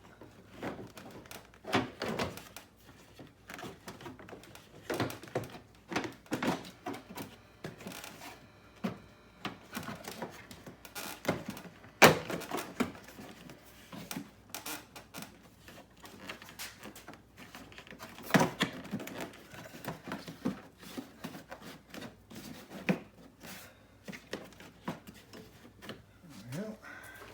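Plastic cowl trim panels under the windshield being handled and pressed into place: irregular clicks, knocks and plastic clunks, the sharpest about twelve seconds in.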